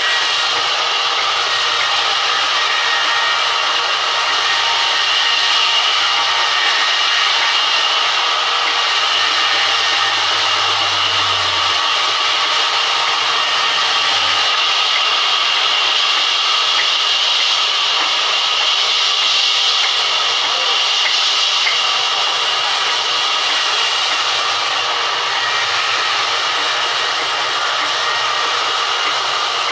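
Large sawmill band saw cutting lengthwise through a thick wooden slab as it is fed along the table, giving a steady, loud, hissing noise.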